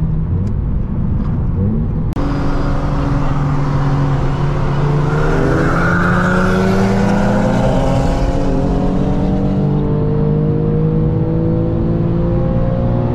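Infiniti G37's 3.7-litre V6 engine and exhaust heard from inside the cabin on the move. Its pitch climbs steadily from about five seconds in as the car accelerates.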